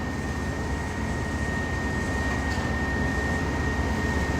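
Steady machinery rumble from the concrete pour, chiefly the concrete pump truck's diesel running, with a constant high-pitched whine over it.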